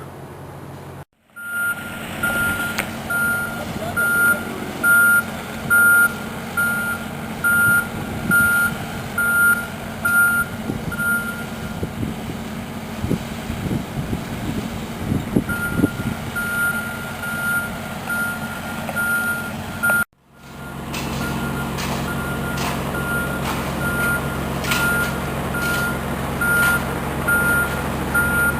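Backup alarm of a heavy construction vehicle beeping about once a second over its running engine. The beeping stops for a few seconds midway, while a few knocks are heard, then starts again.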